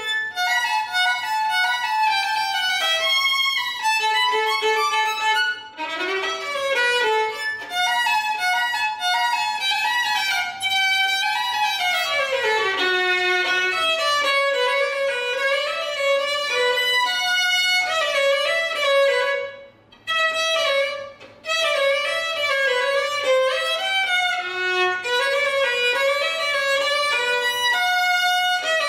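Solo acoustic violin bowed through a melodic passage read from sheet music, with a falling run of notes near the middle and a brief break about two-thirds of the way through.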